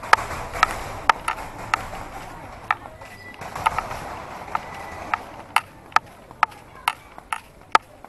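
Footsteps on a path: sharp, hollow clacks at a walking pace of about two a second, over a light outdoor hiss.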